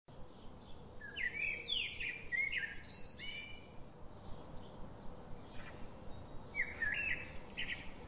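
Birds chirping and singing in quick sliding calls, a flurry about a second in and another near the end, with fainter calls between.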